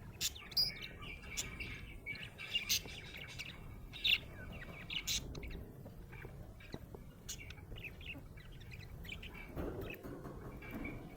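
Budgerigar chirping and warbling: a run of short, sharp high chirps with brief squawks, busier in the first half.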